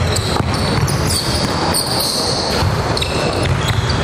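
A basketball bouncing irregularly on a hardwood gym floor, with sneakers squeaking as players cut and stop.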